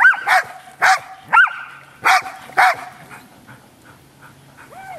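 Groenendael (Belgian Shepherd) dogs barking: a run of short, sharp barks about twice a second, then a pause of about two seconds before the barking starts again near the end.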